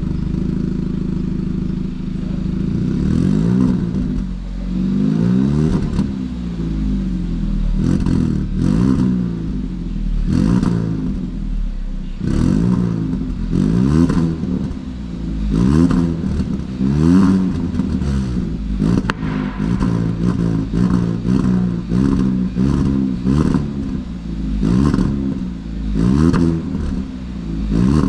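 Kia Ceed GT's 1.6 T-GDI turbocharged four-cylinder petrol engine idling, then revved again and again through its exhaust: short throttle blips that rise in pitch and fall back, coming in quick succession about two thirds of the way through.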